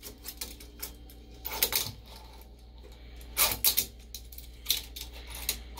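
Fingerboard clacking and rolling on a hard countertop: a handful of sharp taps as the board's deck and wheels hit the surface, with a quick cluster of them about three and a half seconds in.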